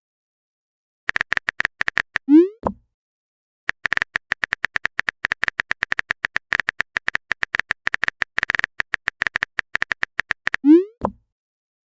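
Phone-keyboard typing sound effect: rapid electronic key clicks in two runs, a short one and then a long one of about seven seconds. Each run ends with a message-sent sound, a quick rising swoop ending in a soft thump.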